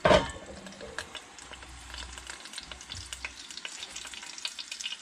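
Hungarian hot peppers frying in bacon grease in a covered skillet: a steady sizzle with scattered crackles and pops. A brief loud clatter at the very start as the metal pan lid is handled.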